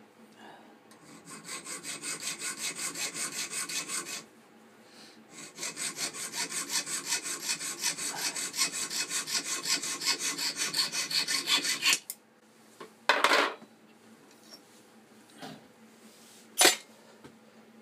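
Junior hacksaw cutting through a thin steel pin rod held in a bench vise: even back-and-forth rasping strokes, about four a second, in two runs with a short pause between. A few short knocks follow, ending in a sharp clack near the end.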